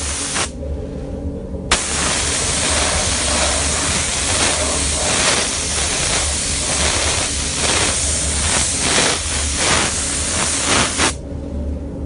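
Gravity-feed spray gun hissing steadily as it sprays anti-scratch clear coat, the hiss cutting out briefly about half a second in and again near the end as the trigger is let off. A steady low hum runs underneath.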